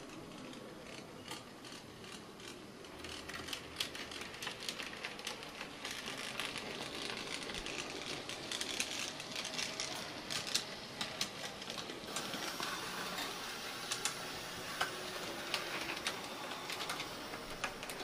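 Small mechanisms of an HO-scale model tramway running, with a faint steady whir and many light, irregular clicks. The clicking grows busier and louder a few seconds in.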